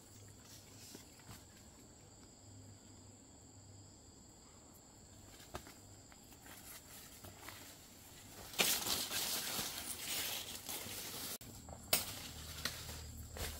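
A steady high insect trill, then, about two-thirds of the way in, loud rustling and crinkling with a sharp click near the end.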